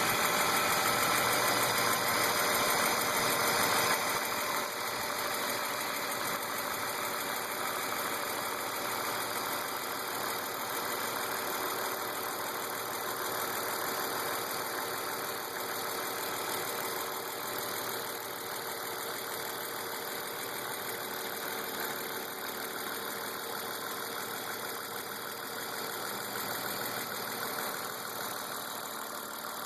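BMW M52 2.8-litre straight-six idling steadily with a ticking noise from the engine. It is a little louder for the first four seconds. The tick persists despite new lifters, injectors, chain tensioners, upper timing chain and VANOS seal, with oil pressure, fuel pressure and cam lobe/lifter clearance checked and found fine, so its cause is still unfound.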